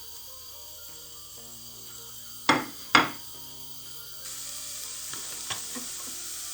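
Two sharp knocks of cookware about half a second apart, then a pan starts to sizzle steadily about four seconds in as oil and onions begin frying.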